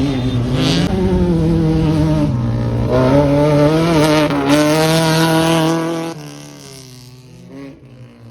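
Rally car engine revving hard as it races past, its pitch climbing and dropping with gear changes, then fading away about six seconds in.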